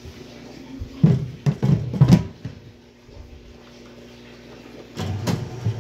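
Several knocks as the heavy plastic lid is set down on a DairyTech milk pasteurizer, then about five seconds in the pasteurizer starts up with a steady machine hum.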